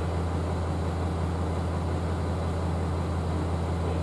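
KiHa 40 diesel railcar's engine idling while the train stands, a steady low hum heard inside the passenger cabin.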